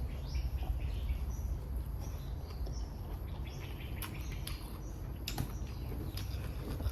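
Small birds chirping on and off over a steady low rumble, with a few sharp clicks.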